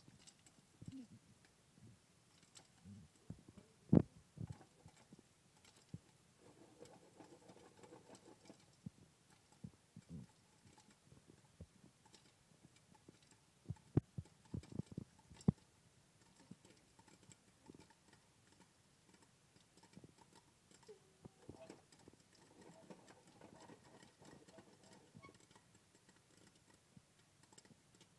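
Popcorn kernels popping inside a lidded pot on the stove: scattered, irregular sharp pops, with the loudest clusters about four seconds in and around fourteen to fifteen seconds in.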